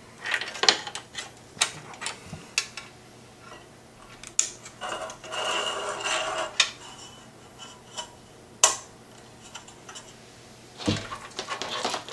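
Metal wire fan clips clicking and scraping against a tower CPU cooler's aluminium fin stack as a fan is clipped onto it. Scattered sharp metallic clicks, with a stretch of rubbing scrape about five seconds in and the loudest click near nine seconds.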